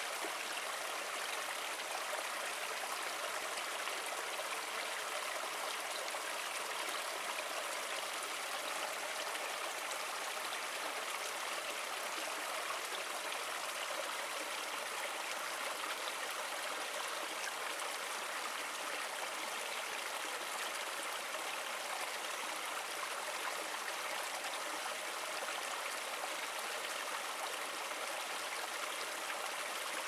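Small stream splashing steadily over a low step of mossy rocks into a shallow pool: a continuous, even rush of water, light in the bass.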